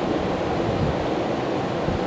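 Steady rush of a fast-flowing river, an even noise strongest in the low and middle range.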